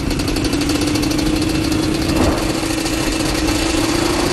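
Engine of a small motor vehicle running at a steady speed, with a brief dip about two seconds in.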